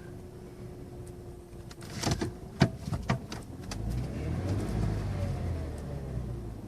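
Vehicle engine picking up revs about four seconds in, a low rumble with a pitch that rises and then eases, after a few sharp knocks.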